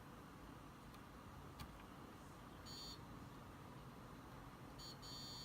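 Continuity tester beeping as the keyboard's circuit traces are probed: a faint click, a short high beep about halfway through, then beeps again near the end, showing the traces are intact.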